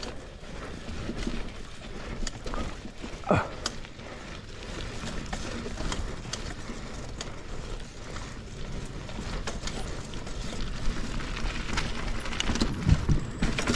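Mountain bike being ridden over a dirt trail: a steady rush of tyre and trail noise with scattered clicks and rattles from the bike, a brief squeak about three seconds in, and heavier knocks near the end.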